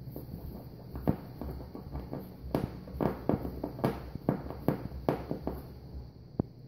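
Yorkshire terrier puppy digging and scratching at a fabric pet bed: an irregular run of scuffs and thumps, busiest in the middle.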